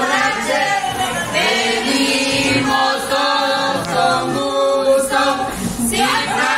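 A group of people singing a celebration song together in chorus.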